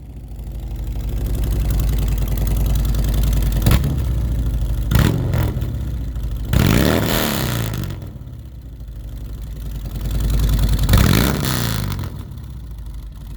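Harley-Davidson V-twin engine running through Samson fishtail exhaust pipes with Reaper tips, revved several times and dropping back toward idle in between.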